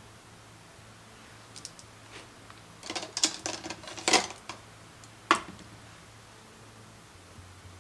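Makeup brushes and a plastic eyeshadow palette being handled on a desk: a few faint ticks, then a quick run of light clicks and clatter, and one sharp click a second later.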